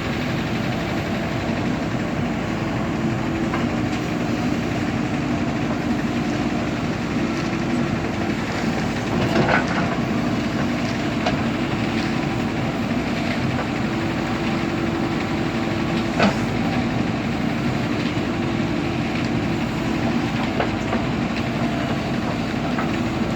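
Diesel engine of a JCB earthmoving machine running steadily under work, with a few sharp metallic clanks.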